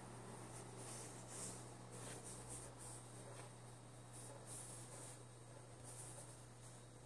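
Faint rubbing and rustling of patterned paper as fingers press and smooth it over the edge of a white board, in several short strokes, over a steady low hum.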